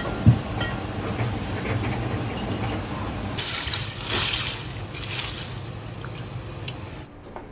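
A pot of water at a rolling boil bubbling and hissing around whole kuruma prawns, with a dull thump just after the start. Louder splashing about halfway through as the prawns are gripped with tongs and lifted out, dripping.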